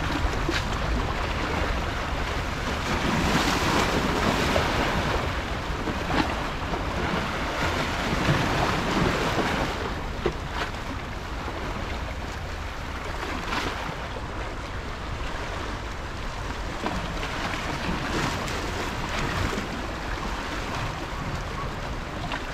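Small sea waves washing and splashing over shoreline rocks, swelling and ebbing every few seconds, with wind buffeting the microphone.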